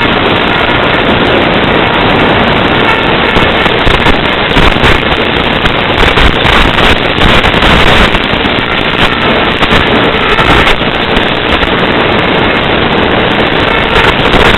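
Loud, harsh crackling noise from an FPV video downlink's audio channel, steady and cut off above a sharp upper limit, with faint steady tones under it.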